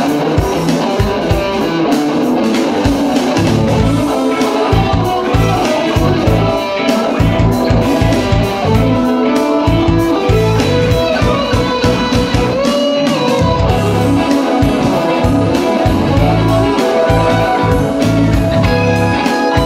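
Electric guitar playing a funky instrumental lead line with several bent notes, over a low, rhythmic backing groove.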